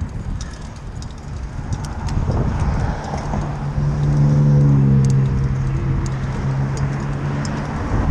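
A motor vehicle's engine running close by, a steady low hum that swells to its loudest about halfway through and fades near the end, over a constant low rumble of road and wind noise. Light rattling clicks come and go throughout.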